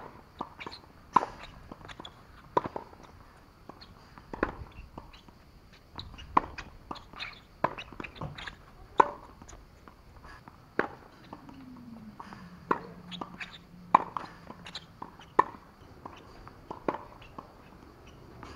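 Tennis rally on a hard court: sharp pops of a ball struck by strings and bouncing on the court, coming every second or two.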